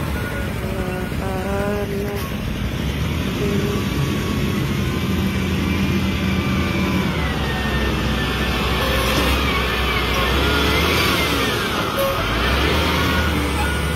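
Wheel loader's diesel engine running under load as the machine drives with a full bucket of sand. From about five seconds in, a whine glides up and down in pitch over the steady rumble.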